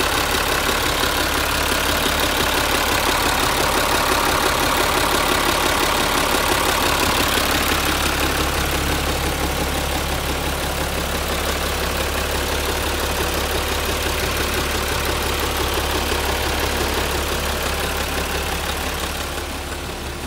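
Isuzu 6HL1 inline-six diesel engine idling steadily, heard close over the exposed engine, fading slightly near the end.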